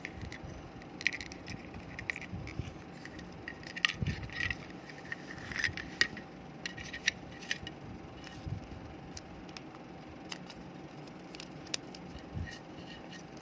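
Irregular clicks, taps and light rattles of small hard plastic parts being handled while a computer mouse is taken apart, busiest in the first half and sparser later.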